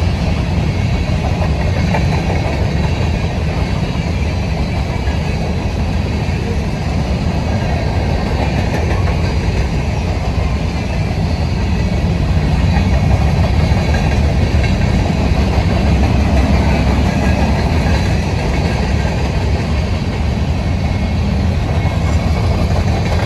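Freight train of covered hopper cars rolling past at close range: a steady, loud rumble of steel wheels on the rails.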